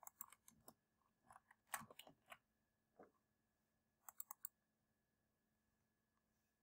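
Near silence with faint, scattered computer mouse clicks, including a quick run of three about four seconds in, as the lecture slides are advanced.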